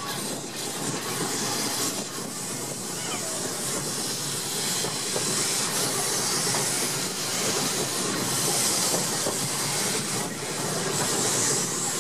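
Tramcar running along its track, heard from on board: a steady rumble of wheels on rails with a continuous hiss over it.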